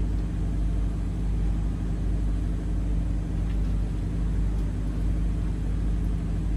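Steady low drone of the boat's engine running, an even hum that does not change.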